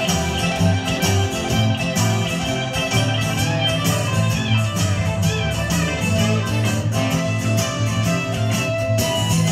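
Live band playing an instrumental passage with no singing: electric guitar over acoustic guitar, bass and a steady drum beat.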